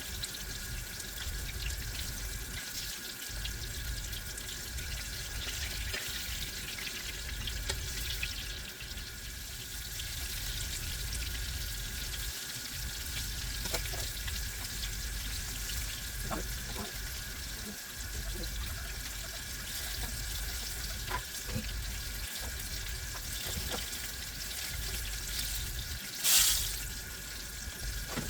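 Buttermilk-and-cornmeal-breaded tomato slices frying in hot grease: a steady sizzle with scattered crackles, and one brief louder burst near the end.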